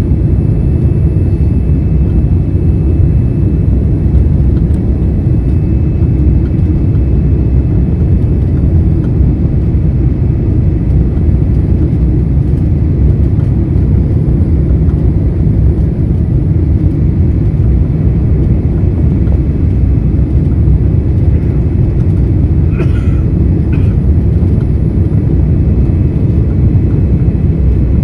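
Steady, deep rumble of a Boeing 787-9 Dreamliner heard from inside the cabin. Two faint short tones come through near the end.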